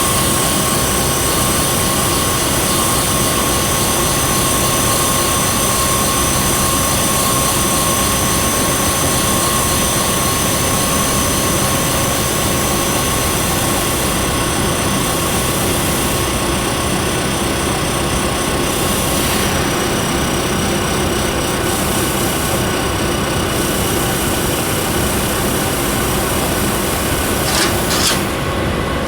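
3K12 cylindrical grinding machine running: a steady machine noise with several high, steady whining tones over it. Two short clicks come near the end.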